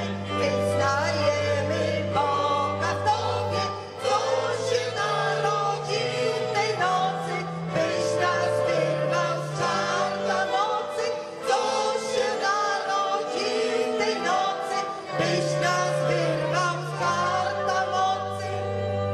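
A mixed group of men and women singing a Polish Christmas carol together into microphones, over instrumental accompaniment with held bass notes that change step by step.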